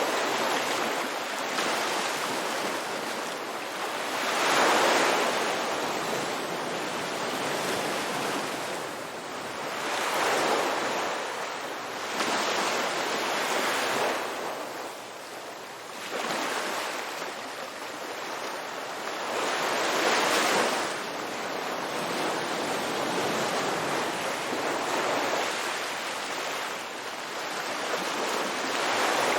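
Ocean surf washing onto a beach: a steady rush of waves that swells louder as each one breaks, every five to eight seconds.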